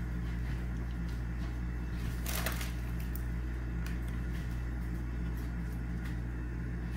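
Steady low hum of room tone, with a few faint clicks and a short rustle a little over two seconds in.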